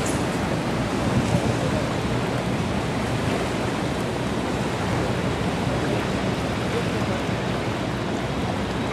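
Steady rush of wind and water with a low rumble underneath, unchanging throughout.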